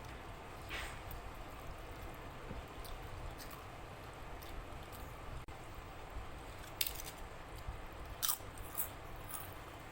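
A person eating a meal of rice, dal and chicken curry close to the microphone: chewing with a few short, wet mouth smacks and clicks.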